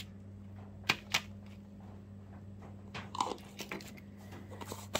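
Small clicks and gritty taps from sifting powdered glass frit and handling the sifter and frit jars: two sharp clicks about a second in, a cluster around three seconds, and a few more near the end, over a steady low hum.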